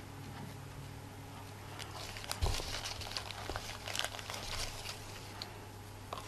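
Ribbon bows and scraps being handled and rummaged through in a small box: soft rustling with scattered light clicks from about two seconds in, and one soft knock about two and a half seconds in, over a steady low hum.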